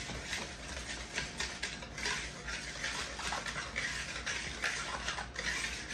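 Wire whisk stirring dry flour mixture in a large mixing bowl, a steady run of short scraping, rustling strokes against the bowl.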